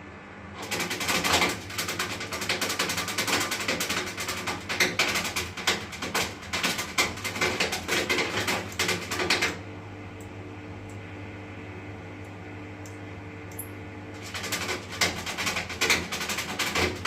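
Washing machine running with a steady hum, overlaid by a loud, rapid rattling that sets in about a second in, stops about ten seconds in and starts again near the end: an abnormal noise that the owner takes as a sign that something in the machine is broken.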